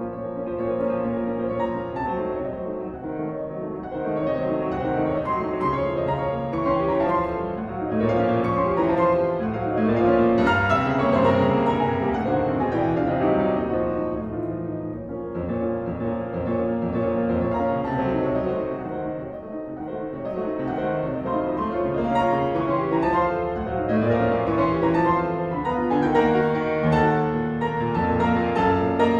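Solo piano playing classical music, with dense full chords that swell louder and ease off several times.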